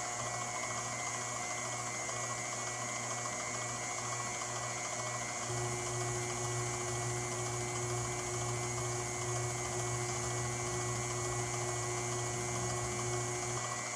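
KitchenAid tilt-head stand mixer running steadily, its motor humming as the beater works pound-cake batter in the steel bowl. About five seconds in the hum grows a little stronger and a new steady tone joins it.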